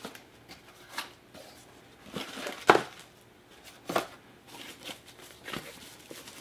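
Small cardboard box being opened and its contents handled: a few short cardboard taps and scrapes about a second or so apart, the loudest near the middle, with plastic wrapping rustling.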